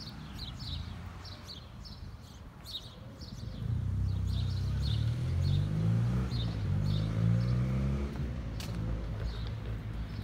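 A car drives past, its engine hum swelling from about four seconds in and fading near the end, over small birds chirping in quick repeated calls.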